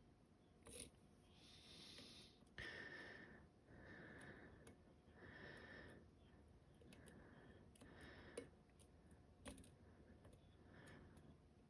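Near silence: faint breathing close to the microphone, about seven soft breaths, with a few faint sharp clicks of a pick working the pins of a euro cylinder lock.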